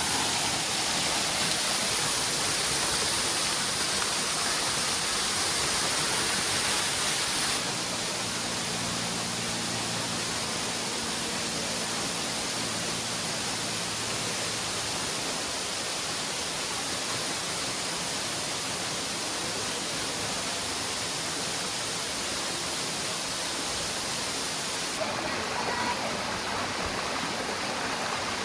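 Waterfall pouring: a steady rush of falling water, a little softer and duller after about seven seconds in.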